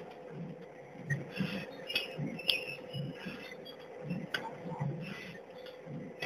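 Horizontal pre-made pouch packing machine running: a steady hum with soft low thuds repeating a couple of times a second, and scattered light clicks and short metallic clinks from its mechanism.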